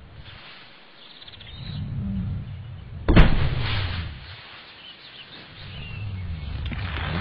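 A heavy thud about three seconds in as a cartoon rock creature topples to the ground, amid low moaning sounds and faint birdsong.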